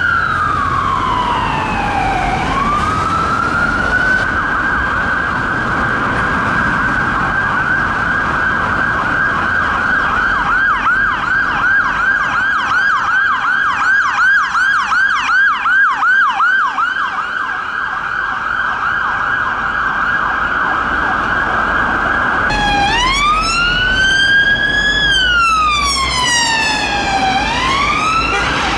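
UK emergency vehicle sirens, loud throughout. A slow wail sweeps up and down, then holds a steady high note. In the middle it breaks into a fast yelp for several seconds, then returns to the slow rise-and-fall wail near the end, over low traffic rumble.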